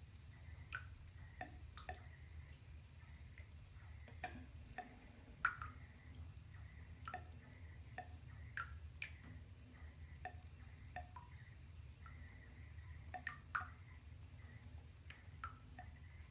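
Water dripping into a filled bathtub: irregular single drops, about one or two a second, over a low steady hum.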